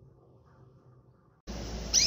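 A pause in a canary's singing, faint at first. About one and a half seconds in, a rushing noise starts abruptly, and at the very end the canary gives a quick rising whistled call note.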